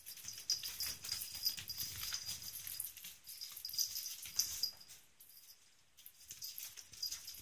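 A kitten batting and chasing a small ball across a carpeted floor: a run of quick, light taps and scuffles, easing off for a moment about five seconds in before picking up again.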